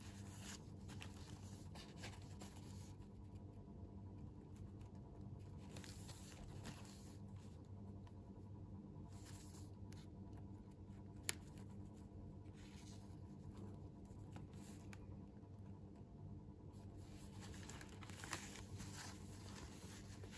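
Faint rustling and scraping of cardboard boxes being handled and turned over in cotton-gloved hands, coming in several short spells. A single sharp click about eleven seconds in is the loudest sound. A low steady hum runs underneath.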